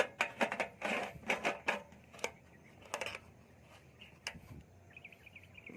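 A quick, irregular run of sharp clicks and knocks, like small hard parts being handled, thinning out after about three seconds. Insects chirp steadily in the background, pulsing near the end.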